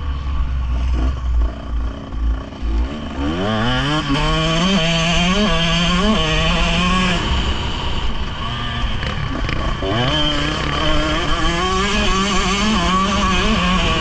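Motocross dirt bike engine heard from the rider's own onboard camera. After a low rumble, it accelerates hard about three seconds in with the pitch climbing steeply, then revs in short steps through the gears. It eases off about halfway through and builds revs again near the end.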